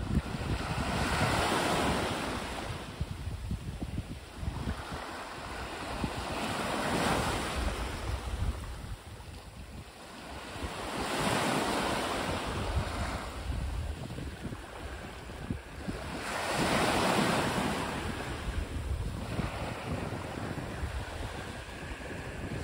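Small sea waves breaking and washing up a pebble-and-sand beach. There are four surges, about five seconds apart, each rising and falling away, with wind buffeting the microphone underneath.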